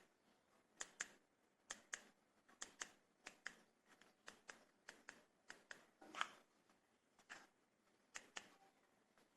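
Faint sharp clicks, mostly in close pairs, repeating about once a second, with one louder click about six seconds in.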